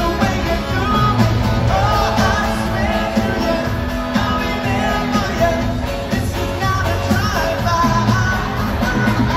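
Live pop-rock band with a male lead vocal singing over acoustic and electric guitars, bass and drums, heard from the audience in a large hall.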